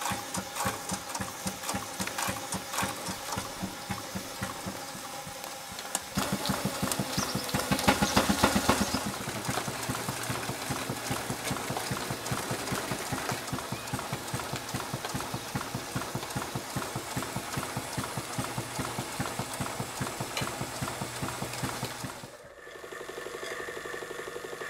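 Scale model showman's steam traction engine running, its exhaust beating in a fast, even rhythm, louder for a few seconds about six seconds in. Near the end this gives way to a smaller stationary model steam engine belt-driving a dynamo, a steadier running sound.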